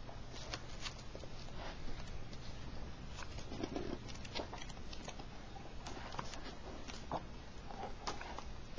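Pages of a book being turned and riffled by hand: soft, irregular paper rustles and flicks over a steady low hum.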